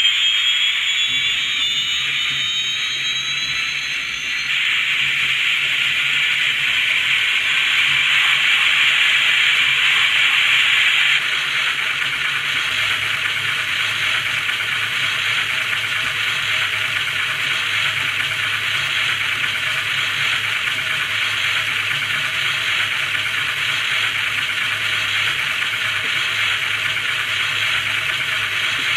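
Onboard sound decoder of an HO scale UH-1H Huey model playing a simulated turbine start-up as its rotor spins up. A whine glides up in pitch over the first few seconds, then settles into a steady rushing hiss of turbine and rotor, with a low hum underneath from about a second in. The hiss is louder for several seconds, then eases slightly and holds steady.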